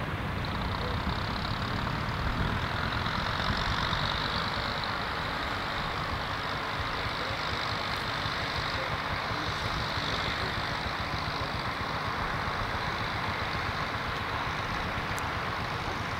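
Fordson Super Dexta tractor's three-cylinder diesel engine running steadily at low revs, with a fast, even chugging and a steady hiss above it.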